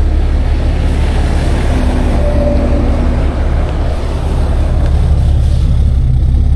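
Tow truck engine idling steadily with a constant low rumble.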